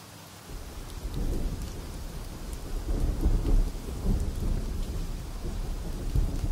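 Rain with a low, rolling rumble of thunder that starts about half a second in.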